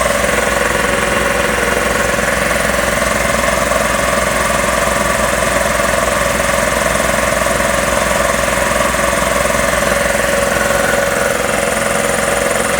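Magna Force two-stage air compressor running steadily under power, its pump chugging as it builds tank pressure toward cut-off.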